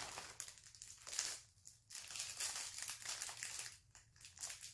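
Small plastic packaging crinkling and rustling as it is handled, in several irregular bursts.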